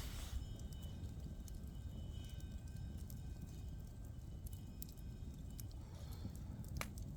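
Wood fire burning, with scattered sharp crackles and pops over a steady low rumble.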